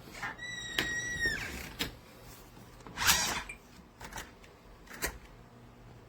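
DESLOC B200 smart deadbolt lock operating: a steady high beep lasting about a second, then a short burst of its motor driving the bolt about three seconds in, with several sharp clicks.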